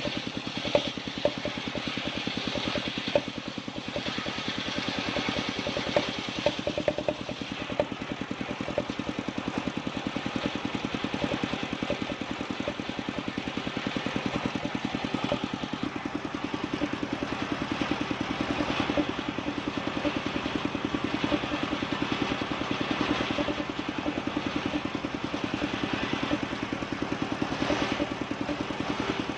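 Engine of a powered wood saw running steadily under load while cutting bayur timber, with a few sharp knocks in the first several seconds.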